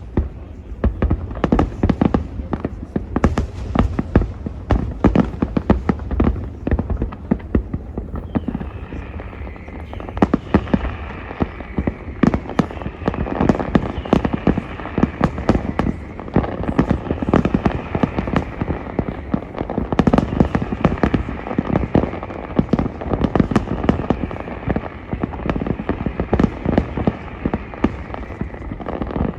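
Aerial fireworks display: a continuous rapid series of bangs and booming shell bursts, many overlapping, with crackling between them.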